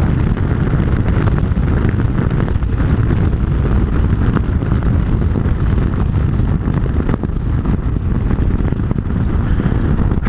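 Vehicle driving along at speed: steady low engine and road noise, with wind buffeting the microphone.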